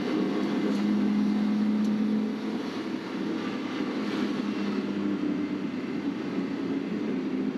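Car engine and road noise heard from inside the cabin while driving: a steady drone with a low engine hum that shifts in pitch a couple of times.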